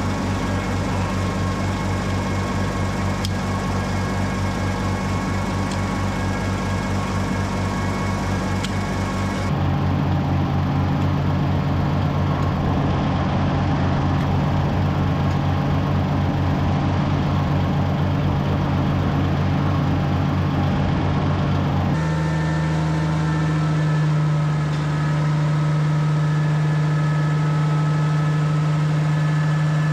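Oliver 1650 tractor engine running steadily and smoothly on a test run, to see whether coolant is getting into its oil. Its pitch and tone change abruptly twice, about ten seconds in and again about two-thirds of the way through.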